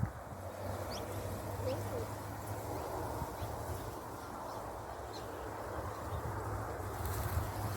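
Faint bird calls, a few short chirps, over steady outdoor background noise with a low hum.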